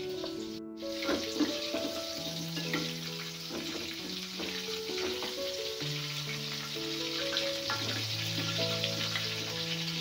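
Stuffed tofu deep-frying in hot oil in a wok, a steady sizzle that starts about a second in, with a few light clicks of a metal spatula turning the pieces.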